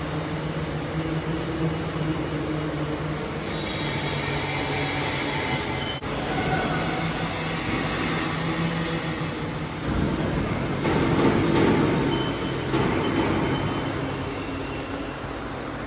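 Machinery running steadily with a low, even hum. High squealing tones come in near the middle, followed by a louder, rougher stretch.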